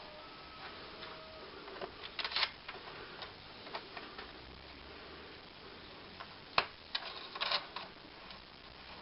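Scattered light clicks and knocks as parts are handled and fitted on a homemade Longworth lathe chuck, with one sharp click about two thirds of the way through.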